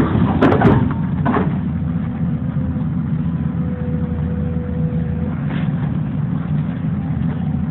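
Tracked excavator's diesel engine running steadily with a low rumble, with a few sharp knocks in the first second and a half and a thin, steady whine for about two seconds in the middle.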